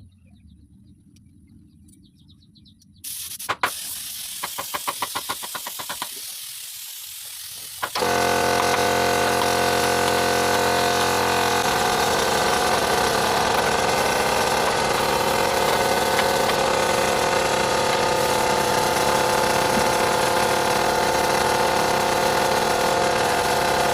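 A machine starts up about eight seconds in and runs steadily to the end with a loud hiss over a steady motor hum, after a quieter spell with a run of rapid clicks, as from an air compressor feeding a spray gun for a clear gloss coat.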